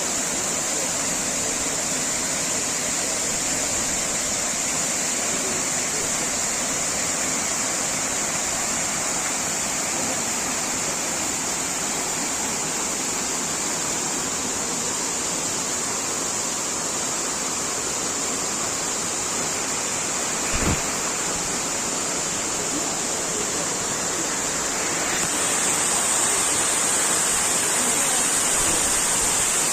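Waterfall and churning river water rushing, a steady, even noise throughout. There is one brief thump about two-thirds of the way through, and the rushing grows slightly louder near the end.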